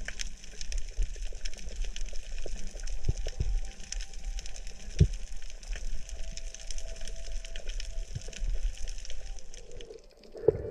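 Underwater ambience on a coral reef: a dense, continuous crackle of tiny clicks over a low rumble of moving water, with a sharp knock about halfway through and another near the end.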